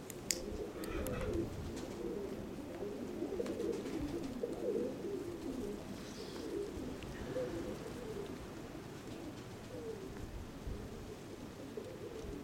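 Nikolaev pigeons cooing, many low coos overlapping without a break.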